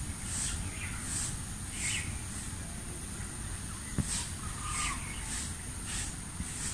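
Outdoor ambience: a steady high-pitched whine with short high chirps repeating about once a second, over a low rumble. There is a single sharp click about four seconds in.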